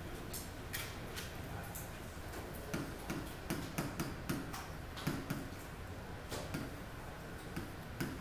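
Stylus tapping and clicking on the glass of an interactive touchscreen display while writing, an irregular run of light ticks that comes thickest in the middle, over a low steady room hum.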